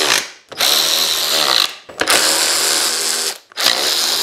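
Power drill with a socket running steel mounting bolts down into a motorcycle luggage-rack plate, in repeated trigger bursts of about a second each with short pauses between. The bolts have just been coated with thread-locker.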